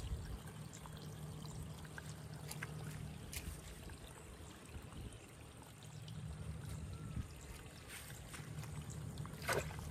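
Water trickling, under a low steady hum that fades out about three seconds in and comes back about three seconds later, with a few light clicks.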